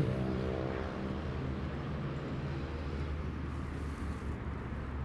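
A steady, low engine hum at a constant speed, with no revving.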